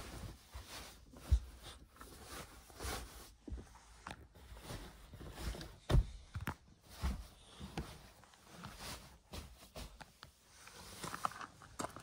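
Nylon sleeping bag rustling and swishing as it is spread out and smoothed by hand, with scattered handling knocks: a sharp one about a second and a half in and a louder thump near the middle.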